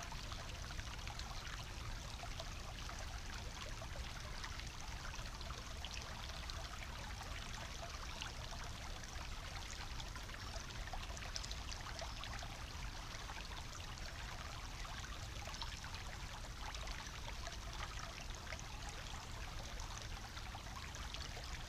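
Small shallow brook bubbling and trickling over stones, a steady babble made of many small splashes.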